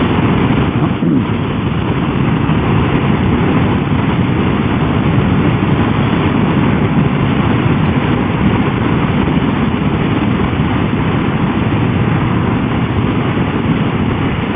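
Triumph motorcycle ridden at road speed: a steady rush of wind noise over the engine and tyres.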